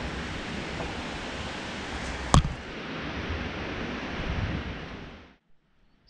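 Storm wind blowing in strong gusts, a steady rushing noise, with one sharp knock about two seconds in. The wind fades out shortly before the end.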